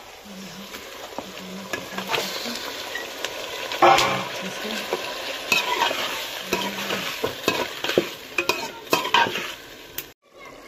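Snail meat and onions sizzling in hot oil in a metal pot while a metal spoon stirs and scrapes against the pot. There is a louder knock about four seconds in.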